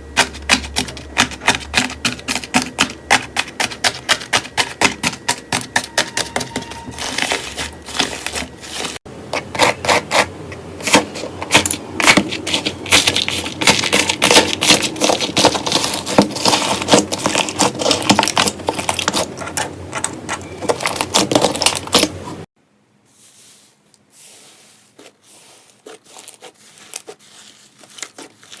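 Slime being worked by hand, giving a fast run of sharp clicks and crackles. Near the end it drops to quieter, sparser crackling.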